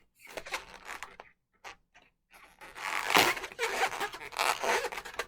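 Latex modelling balloons rubbing and scraping against each other as they are handled and twisted. The rustling comes in short uneven strokes and grows louder and more continuous about halfway through.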